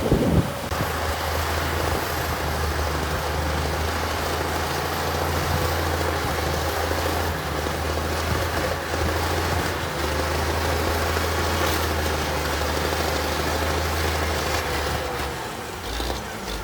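Heavy diesel engine of earthmoving equipment running steadily with a low drone, after a short thud right at the start.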